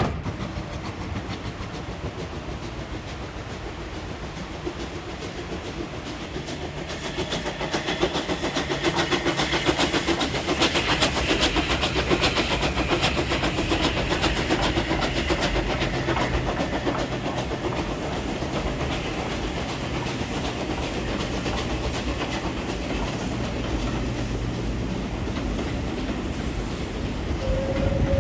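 A train running past, its wheels clattering over the rail joints in a fast, steady beat that builds to its loudest around the middle and then eases off. Just before the end, a rising whistle starts.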